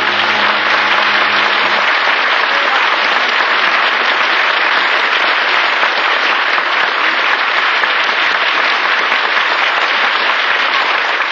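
Live studio audience applauding, a long, steady round of clapping heard on an old radio broadcast recording.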